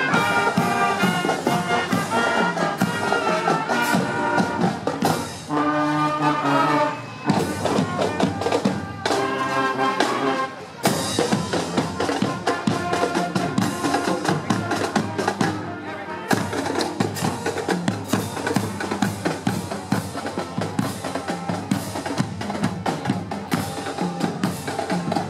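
Marching band playing on the move: brass (trumpets, trombones, saxophones, sousaphone) over a drumline. The horns are strongest for the first ten seconds or so, after which the drums' steady beat comes more to the fore.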